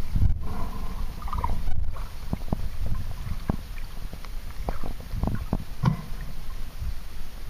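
Underwater sound of a clear river picked up by a submerged camera: a low rumble of moving water with irregular short clicks and pops.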